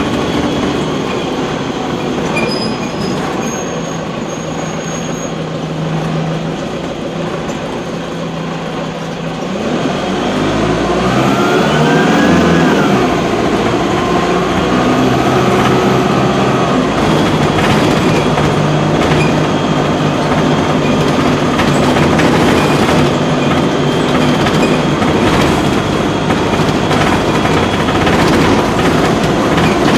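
Cummins ISC diesel engine of a Dennis Dart SLF single-deck bus, heard from inside the saloon while the bus is under way. About ten seconds in it revs up hard under acceleration, its pitch rising, dropping and rising again through the gear changes. It then settles into a louder, steady drone, with occasional body rattles.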